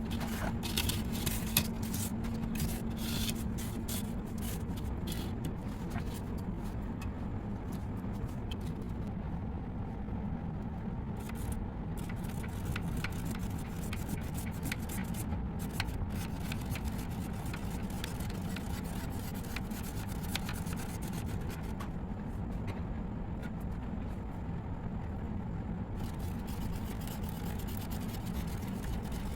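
Pen rubbing and scratching on paper as a plastic spirograph gear is turned around its ring, a steady dull scraping with faint clicks in the first few seconds.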